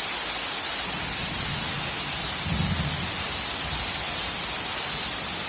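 Heavy rain falling steadily in a thunderstorm, with a low rumble about one second in and again around two and a half seconds in.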